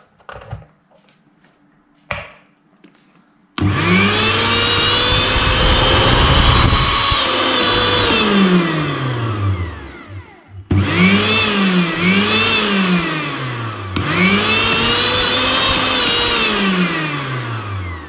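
Maharaja 500-watt mixer grinder's brushed motor, running without a jar. After a click about two seconds in it starts sharply and runs at full speed with a high whine, then winds down. It is started again, briefly pulsed up and down, and winds down once more near the end. It now spins freely, its previously jammed shaft bushes cleaned and oiled.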